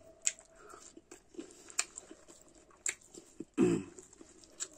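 A person eating by hand: wet chewing and lip-smacking, with a few sharp mouth clicks, and a short voiced sound from the eater about three and a half seconds in.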